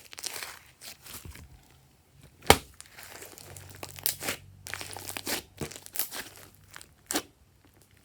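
Hands working glossy slime: squishing and stretching it, with irregular sticky crackles and small pops of trapped air, and one sharp louder pop about two and a half seconds in.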